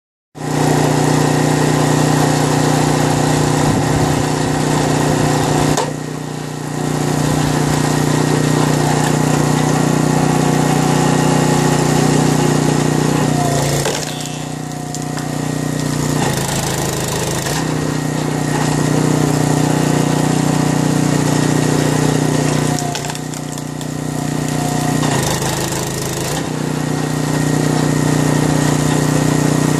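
Ryetec Eco 80 log splitter's 6.5 hp petrol engine running steadily. Its note drops and changes briefly about six seconds in, and for a few seconds around fourteen and again around twenty-three seconds in, as the hydraulic ram works on the log.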